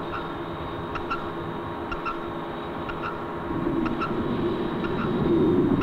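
Film sound effect of a submarine moving underwater: a steady hum with a soft tick about once a second, and a louder low rumble that builds from about halfway through.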